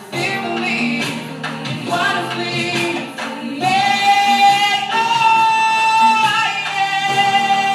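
A woman singing a slow song live into a microphone over musical accompaniment; in the second half she holds one long high note, stepping it up and back down.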